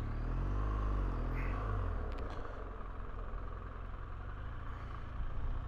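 BMW R1200GS flat-twin boxer engine running at low speed in town, its note rising and falling once in the first couple of seconds and then running steadily, with road and wind noise.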